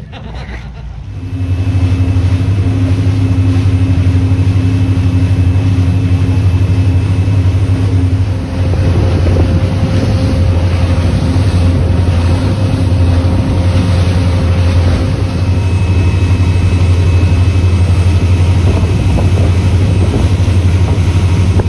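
A fishing charter boat's engine drones steadily under way. From about eight seconds in, a rush of wind and water from the wake joins it.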